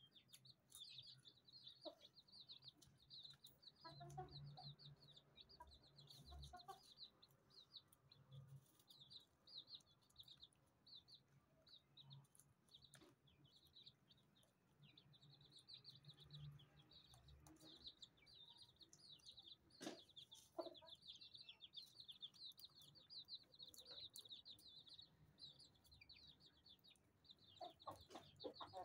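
Chicks peeping continually in quick, high chirps beside their mother hen, with the hen's low clucks now and then. Faint throughout, with a few sharp clicks.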